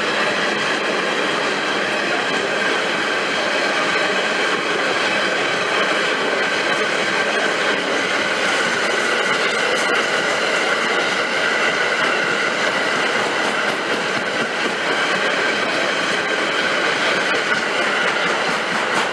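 Loaded double-deck car-transporter freight wagons rolling past, a steady rumble and clatter of steel wheels on rail, with a thin, steady high ringing over it.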